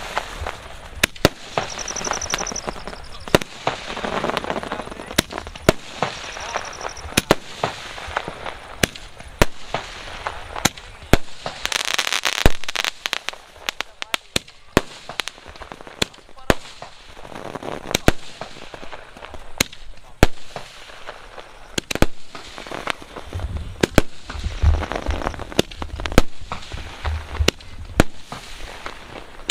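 Aerial fireworks and firecrackers going off in quick, irregular succession: many sharp bangs and crackles, a longer hissing rush about twelve seconds in, and a deep rumble near the end.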